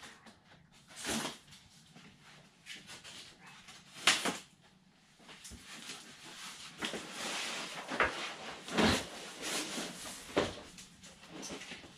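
Cardboard box being handled: packing tape cut along the top and the box opened and shifted on the table, a run of irregular scrapes and rustles with a sharp knock about four seconds in.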